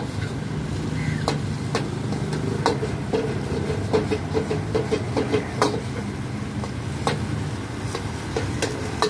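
High-pressure gas wok burner running with a steady low rumble while a metal ladle clanks and scrapes irregularly against the wok as noodles are stir-fried.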